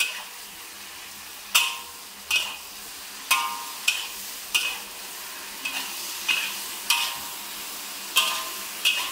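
Metal wok spatula clanking and scraping against an iron wok as cubed brinjal and tomato are stir-fried, about ten strikes at irregular intervals, some with a short metallic ring, over a steady sizzle of the food in the hot oil.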